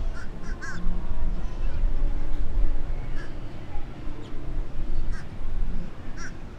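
Wind buffeting the microphone in a loud, uneven rumble over faint voices, with a handful of short, sharp calls, a cluster near the start and single ones later.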